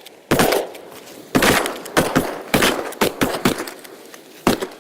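Volley of shotgun fire from several duck hunters shooting together into an incoming flock of eiders: about ten loud shots in quick, uneven succession, some nearly overlapping, each with a short echo.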